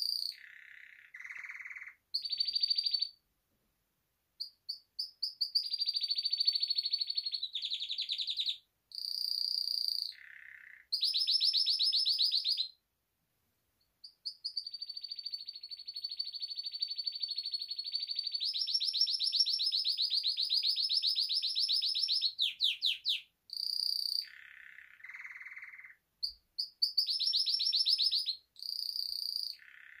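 Domestic canary singing: rapid trilled phrases, mostly high with some lower buzzy ones, broken by a few short pauses, and one long unbroken trill lasting several seconds in the middle.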